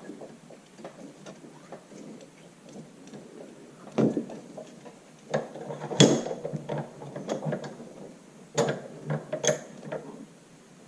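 Light clicks and taps of metal parts and tools being handled, with several sharper knocks, the loudest about six seconds in, as pieces of a tractor's rear crankshaft oil seal are fitted together.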